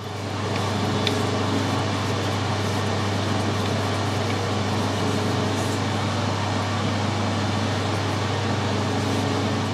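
Metal lathe running at a steady speed with a low hum while a twist drill held in the tailstock chuck drills a tapping-size hole into the metal part turning in the lathe chuck.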